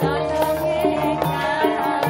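Music with percussion: held instrumental notes over a beat of short drum strokes.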